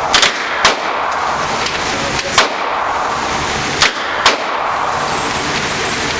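Single gunshots fired one at a time from a shoulder-fired gun in an indoor shooting range, about six sharp cracks at uneven spacing, some in quick pairs, over a steady background rush.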